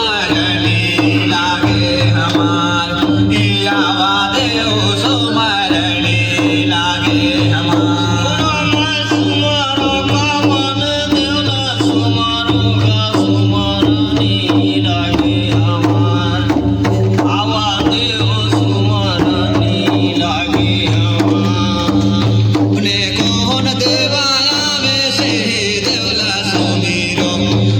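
Chhattisgarhi devotional folk music (jas geet) with drums keeping an even beat under a steady drone and a busy melody.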